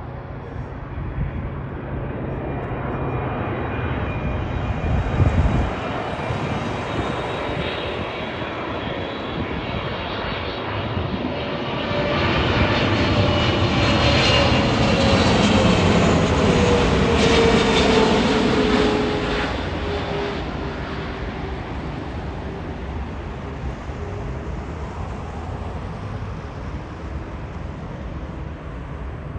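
Jet airliner passing low overhead on final approach: its engine noise builds, is loudest about halfway through, with a whine that falls in pitch as it goes by, then fades away. Wind rumbles on the microphone underneath.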